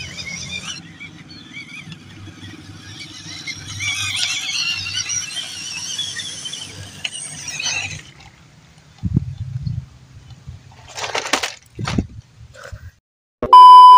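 Small electric motors and gearboxes of RC crawler trucks whining, the pitch wavering up and down with the throttle, for about eight seconds. Then come a few knocks and thumps as a crawler tumbles over onto its roof, and near the end a loud, steady electronic beep of about half a second.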